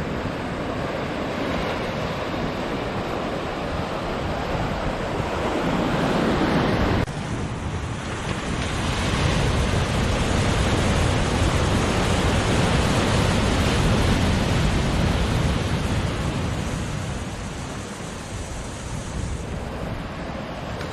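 Ocean surf washing onto the shore, a loud rushing that swells and eases, with wind buffeting the microphone. The rush drops abruptly about seven seconds in and builds up again.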